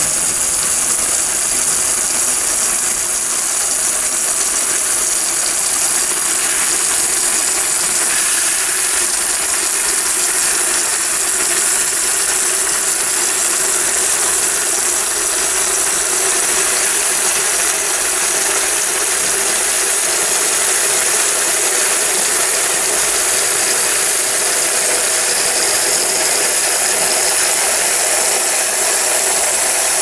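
Brastemp Eggo mini washing machine filling with water: a steady, unbroken hiss of water rushing into the tub and onto the soapy load.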